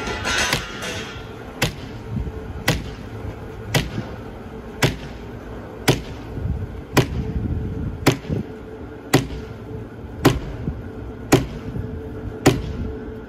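Woodworking machinery running with a steady hum, while sharp knocks repeat evenly about once a second.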